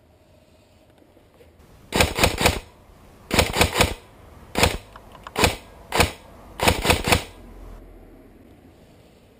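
Airsoft rifle firing in short rapid strings of three or four shots and single shots, about fifteen in all, between about two and seven seconds in.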